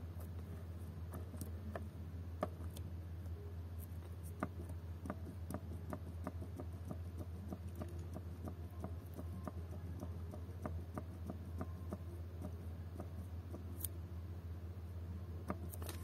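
Series of light clicks from the push buttons on a UD Quester truck's instrument cluster, pressed over and over to step through a service-reminder date setting, over a steady low hum.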